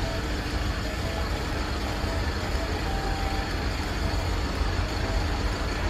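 Double-decker coach's diesel engine running with a steady low rumble as the coach drives slowly off.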